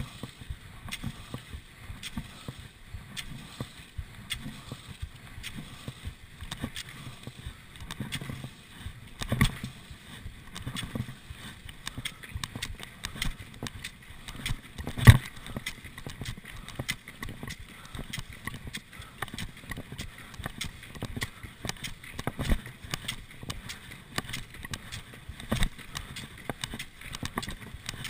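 Classic cross-country skiing in machine-set tracks: skis swishing and poles planting over and over in a rhythm, with a few louder knocks, the loudest about halfway through.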